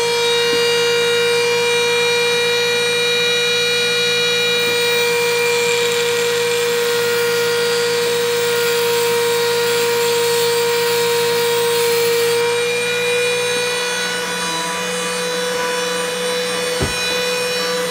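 A Dremel rotary tool driving a diamond-plated cutting wheel through a flex-shaft pen attachment, running with a steady whine, with a gritty grinding over it in the middle as the wheel cuts into glass. The pitch dips slightly about two-thirds of the way through.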